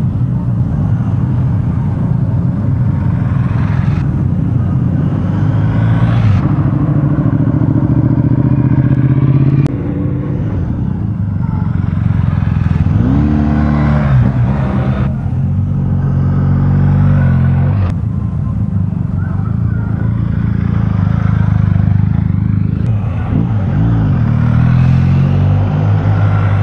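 BMW R1250GS motorcycle's boxer-twin engine running, its pitch rising and falling a few times as it revs, in several short cuts.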